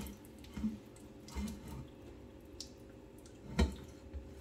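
A thin stream of tap water trickling into a stainless steel kitchen sink while a plate is rubbed by hand. There are a few soft knocks and one sharper knock about three and a half seconds in.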